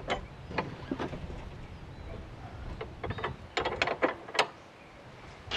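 Scattered metallic clicks and clanks as a lawn tractor's mower deck and steel tool parts are handled, with a quick run of clicks about three and a half to four and a half seconds in.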